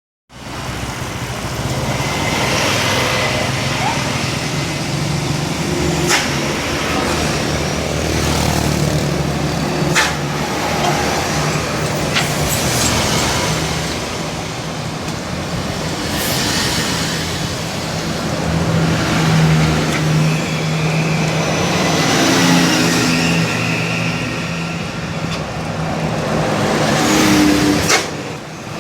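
Large coaches driving in a convoy, their diesel engines running steadily amid traffic noise, with a few sharp clicks spread through it.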